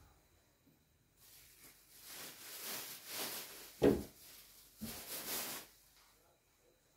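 Plastic bag rustling and crinkling in bursts as sheets of flatbread are pulled out of it, with a thump about four seconds in and a smaller one about a second later.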